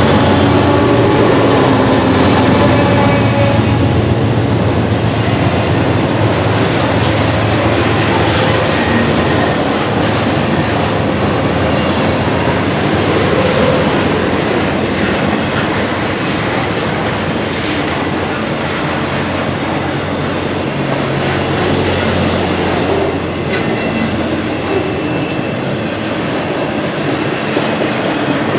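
Norfolk Southern freight train passing close by: diesel locomotive engine drone in the first few seconds, then the cars rolling past with a steady clickety-clack of wheels over the rails, a locomotive's engine drone again about two thirds of the way through, and faint wheel squeal near the end.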